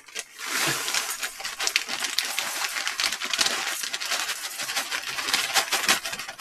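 Granola poured from its plastic bag into a bowl: the bag crinkling and the dry clusters rattling into the bowl in a dense run of small clicks.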